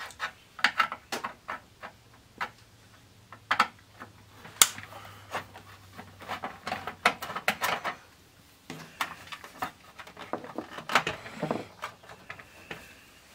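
Irregular clicks and scrapes of a Phillips screwdriver turning a small screw in the plastic cover on the back of a CD changer's laser drive, with plastic knocks as the cover is handled near the end.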